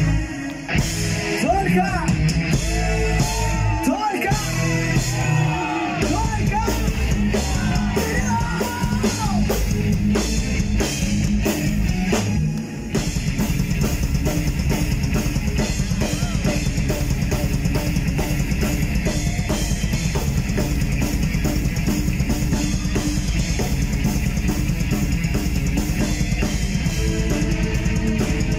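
Heavy metal band playing live: distorted electric guitars, bass and drums. The first part has bending, wavering high lines over the band; after a brief break about thirteen seconds in, the full band drives into a fast, steady rhythm with rapid drumming.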